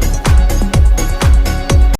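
Electronic dance music with a steady kick drum, about two beats a second, over sustained synth tones; it cuts off at the very end.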